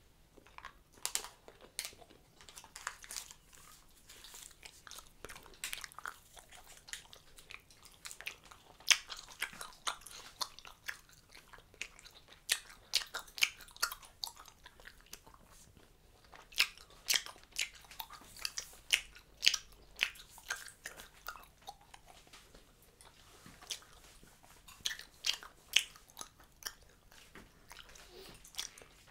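Close-miked chewing of a mouthful of bubble gum: irregular wet smacks and clicks, a few of them much louder than the rest.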